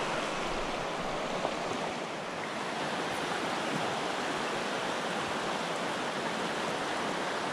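Small mountain stream running over shallow rocky riffles: a steady rush of flowing water.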